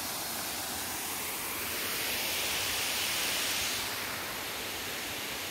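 Small waterfall pouring into a pool: a steady rush of falling water, swelling a little louder for a second or two near the middle.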